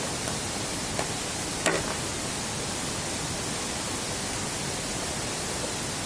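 Steady rush of a fast-flowing stream, with two sharp knocks of a machete striking bamboo about a second in and again just under a second later, the second louder, as a node partition is chopped out of a bamboo stem.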